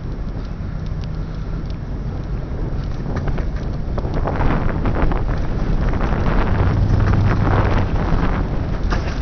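Wind buffeting the microphone over a low rumble from the passing lake freighter. A low hum swells for a second or so about six and a half seconds in.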